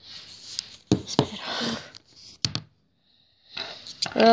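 Handling noise: rustling with a few light clicks and taps as a cardboard advent calendar and small plastic toy pieces are moved about.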